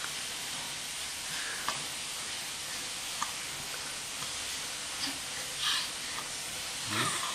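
Steady hiss with a few faint, scattered clicks from a baby sucking and swallowing at a feeding bottle. A short baby vocal sound comes near the end.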